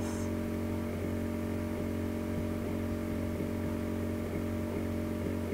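Steady electrical hum and buzz from the recording setup, with faint ticks about twice a second and a brief high blip at the start.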